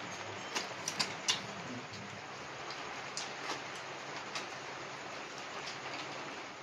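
Light rain falling: a steady hiss of rain with a few sharper clicks of drops scattered through it.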